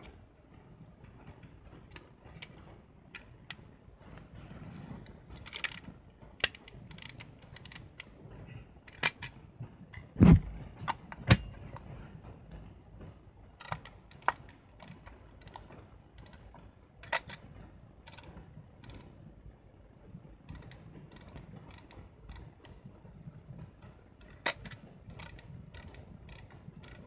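Olympus Pen EE-3 half-frame camera being loaded with 35 mm film and closed up: many scattered small clicks and ratchet-like ticks of metal and plastic parts. The loudest is a thump a little over ten seconds in, followed by a sharp knock about a second later, as the camera back goes on.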